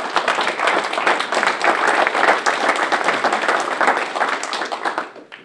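Audience applauding: a dense run of clapping that tails off and fades out near the end.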